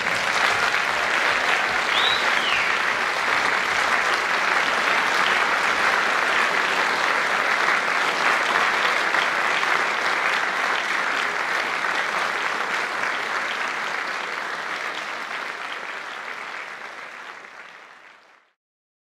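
Audience applauding steadily, fading out and ending near the end.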